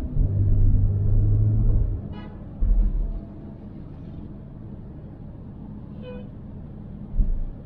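Road noise from a car being driven. For the first two seconds there is a loud low rumble, which then eases to a steadier, quieter drone. Two brief beeps come about two seconds and six seconds in.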